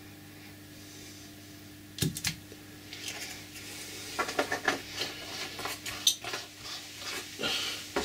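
Glass clinking and tapping: a thin rod stirring in a glass conical flask of old gearbox oil and the flask set down on a board, with a sharp knock about two seconds in and irregular light clinks after it. A faint steady hum underneath at first.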